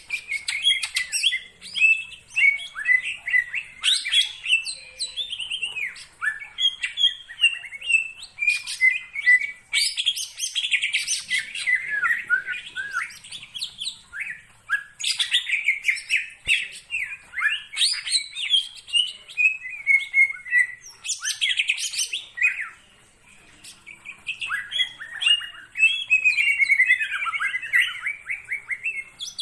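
Cucak ijo (green leafbird) in full song: a fast, varied, chattering run of rapid chirps and gliding notes, almost without pause, with a short break about 23 seconds in.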